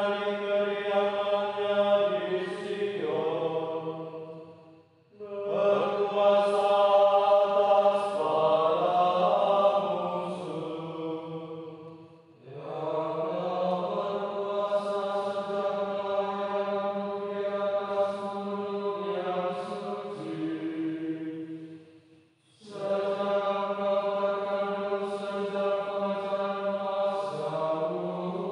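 Slow sung chant: long held vocal notes in phrases of several seconds, with brief pauses about 5, 12 and 22 seconds in.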